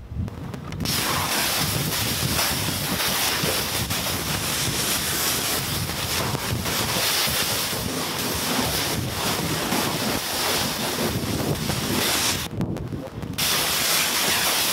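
Hose spraying water over a car's body panels in the final rinse, a steady loud hiss of water that starts about a second in and cuts out briefly near the end.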